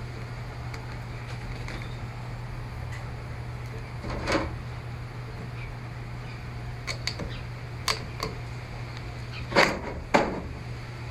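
Tool prying at the plastic back cover of a Samsung Galaxy Tab 4: a handful of short scrapes and clicks, the two loudest close together near the end, over a steady low hum.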